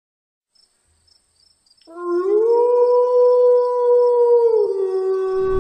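A single long wolf howl begins about two seconds in. It glides up in pitch, holds steady, then drops to a lower held note near the end, with a brief low rumble underneath.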